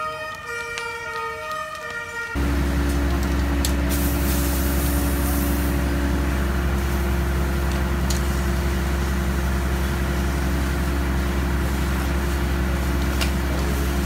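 Fire engine pump running steadily with a deep drone, mixed with the hiss of a hose stream spraying water onto the burning facade. This starts suddenly about two seconds in, after a few sustained tones.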